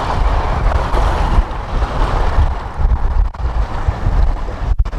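Strong wind buffeting a clip-on lavalier microphone: a loud, gusting low rumble over a rushing hiss, with the sound dropping out briefly near the end.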